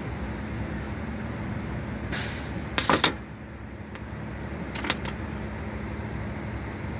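A steady low background hum runs throughout, with a few short scrapes and clicks from copper wire and pliers being handled on a metal tabletop. The loudest of these comes about three seconds in, and a pair of lighter clicks follows about two seconds later.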